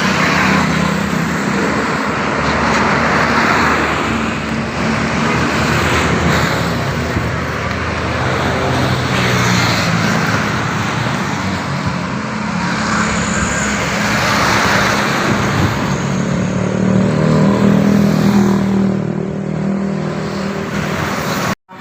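Road traffic: vehicles passing one after another, engine and tyre noise swelling and fading several times.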